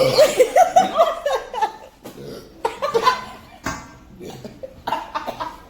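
Women laughing in repeated short bursts, with a long unbroken run of laughter over the first two seconds and then shorter bursts separated by pauses.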